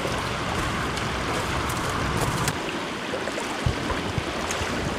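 Little Cow Creek running high and fast: a steady rushing of water.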